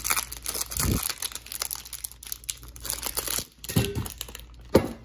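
Thin clear plastic bag crinkling and rustling as it is pulled off a speed cube, with a few short low knocks of handling about a second in and again near the end.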